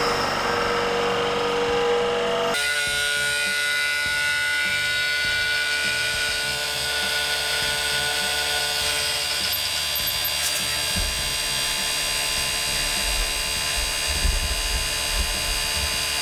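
Electric machinery of an Aikosha vacuum chemical mixer running steadily: a motor hum with several held tones, which shifts abruptly about two and a half seconds in. Low thuds join in the last few seconds.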